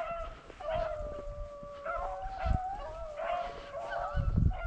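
A pack of rabbit hounds baying on a running rabbit's trail: several long, drawn-out howls overlapping at different pitches. A low rumble near the end.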